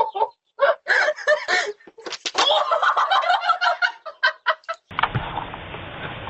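Chicken clucking and squawking in a rapid string of short, choppy calls. About five seconds in it cuts off sharply to a steady background hiss.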